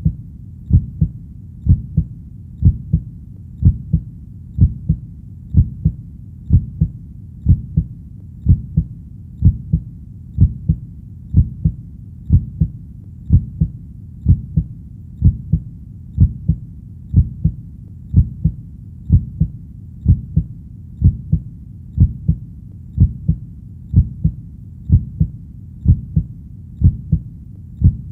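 A heartbeat beating steadily at a resting pace, about once a second. Each beat is a low-pitched double thump, the 'lub-dub', over a faint low rumble.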